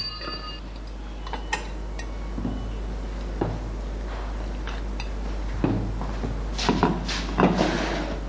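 Dishes and cutlery clinking and knocking as they are handled on a table: a scatter of light clinks, busiest in the second half, over a steady low hum.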